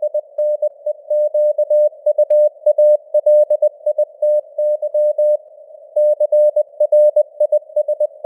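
Morse code (CW) sent at 20 words per minute: a single mid-pitched tone keyed on and off in quick dits and dahs over a narrow band of simulated radio hiss. A pause of about half a second, a little past the middle, marks a space between words.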